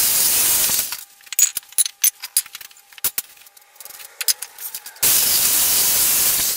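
Handheld electric saw cutting through scrap pallet wood in a short burst, then wooden pieces knocking and clattering as they are moved, then a second, slightly longer cut starting about five seconds in.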